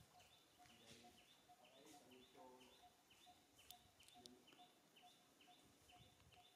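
Near silence: faint outdoor ambience with a steady, even call repeating about twice a second, and two small clicks near the middle.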